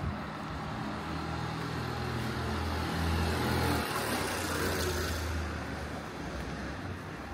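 A car's engine running close by, a steady low hum that rises and settles over the first few seconds, with a rushing swell about four to five seconds in as a vehicle passes.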